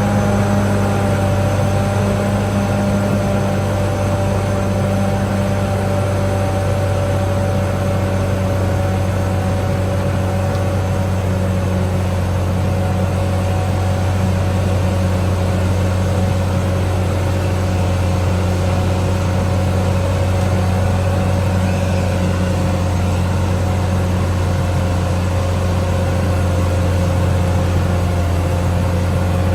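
Caterpillar D6R XL bulldozer's diesel engine running steadily: a low, even drone with a steady whine above it.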